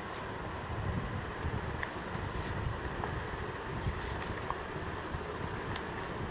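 Steady low rumbling background noise, with a few faint crackles of a paper courier envelope being torn open by hand.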